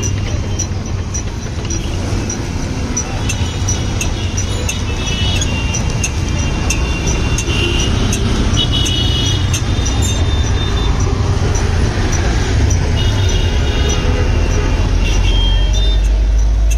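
Roadside traffic noise with a low engine rumble that grows louder near the end, mixed with a hand-cranked iron sugarcane roller press crushing cane stalks, its gears giving light regular clicks.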